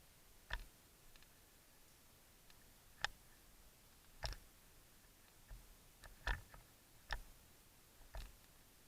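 Scattered single airsoft gun shots: six short, sharp clicks at uneven gaps of about one to two seconds.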